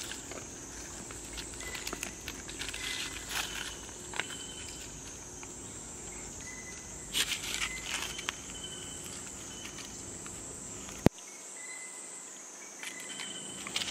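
A steady high-pitched insect chorus that slowly wavers in pitch, with scattered rustling, a few short high chirps, and one sharp click about eleven seconds in.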